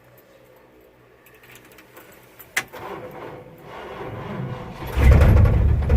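A click about two and a half seconds in, then the 1974 Ford F250's engine cranks on a weak, freshly recharged battery and fires up about five seconds in, running loudly.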